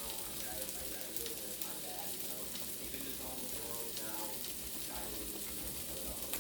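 Sliced onions sizzling steadily in a hot skillet as they cook down.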